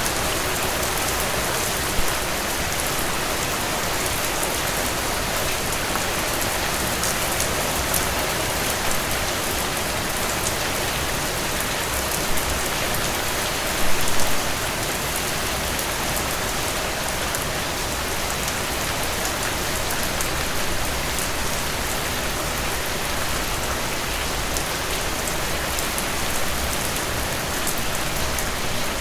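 Heavy rain falling in a steady, dense downpour, with sharp individual drop impacts through it; a brief louder surge about halfway through.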